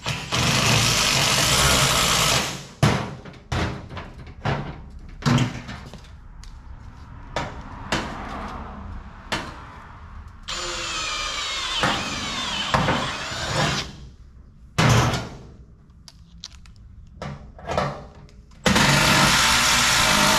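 Cordless drill running in three runs of a few seconds each, turning screws that hold sheet-metal panels on a car body. The drill's pitch rises and falls during the middle run. Short metal knocks and clicks come between the runs.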